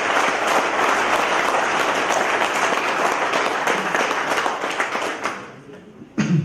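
Crowd applauding steadily, dying away about five and a half seconds in. A single short, loud sound follows near the end, close to the microphone.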